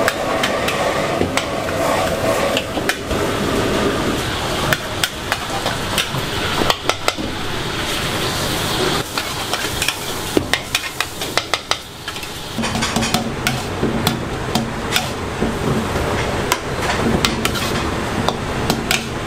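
Metal spatula scraping and clanking against a wok as pad thai noodles, prawns and bean sprouts are stir-fried, with a steady sizzle of frying underneath. The clanks come in quick, irregular strikes.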